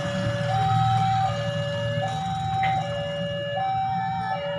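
Railway level-crossing warning alarm sounding an electronic two-tone high-low signal, the tones alternating about every three-quarters of a second, warning that a train is approaching. A low rumble runs underneath.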